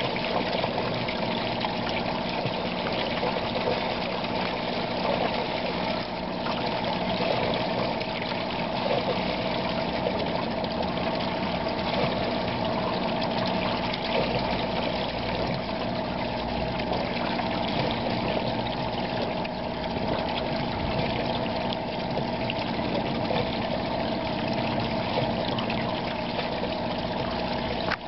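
Water from a newly drilled well gushing steadily out of the end of a plastic discharge pipe and splashing onto the ground, with a steady pump or motor hum underneath.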